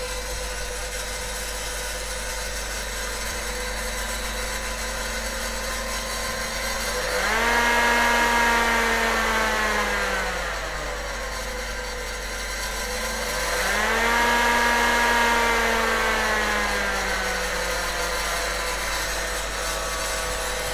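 Cooling fan of a PDP-11/34A power supply running with a steady whirr under a speed controller. Its pitch and loudness rise quickly about seven seconds in and sink slowly back, then again about thirteen seconds in, as the fan speed is changed: the speed controller is working.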